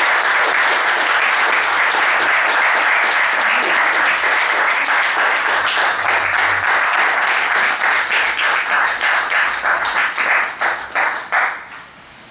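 Audience applauding. The clapping is dense at first, then thins to scattered single claps and stops near the end.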